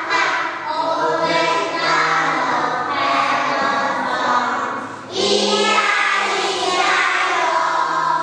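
A group of young children singing together, with a brief break about five seconds in.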